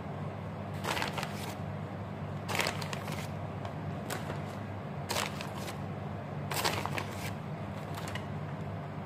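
Several short, soft rustles as shredded mozzarella is picked up and sprinkled by hand over pasta in a baking dish, over a steady low hum.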